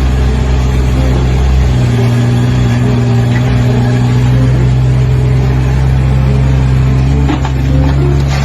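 Loud, steady engine noise, likely from a vehicle or heavy machine, with a constant low hum under a rough noise.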